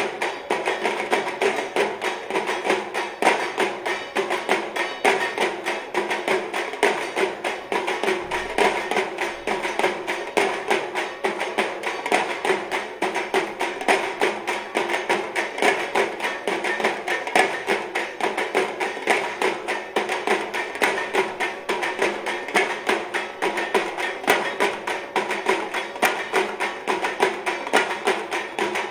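Percussion-led music with a fast, steady beat of sharp stick strikes.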